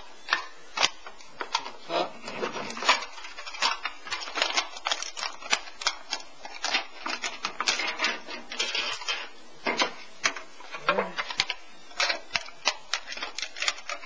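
Tin snips cutting through a thin aluminum beer can: a fast, irregular run of sharp snips and clicks with the crinkling of the thin metal as the can is sliced open and its bottom cut away.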